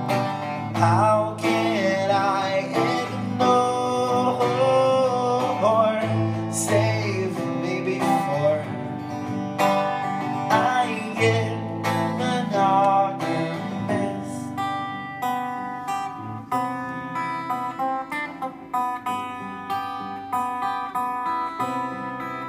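Live steel-string acoustic guitar strummed, with a man's voice singing a melody line over it; about fourteen seconds in the voice drops out and the guitar plays on alone.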